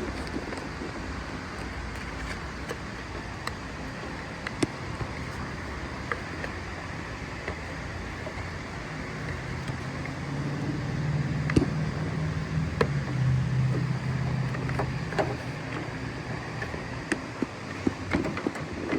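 Scattered clicks and knocks of plastic door-handle pieces being snapped into place inside a Chevy Tahoe door, over a steady low rumble. About halfway through, a low hum swells for several seconds and fades.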